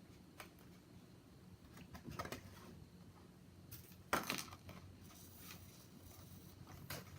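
Quiet handling of paper craft pieces: a few light taps and rustles, with one sharper tap about four seconds in, over a faint low room hum.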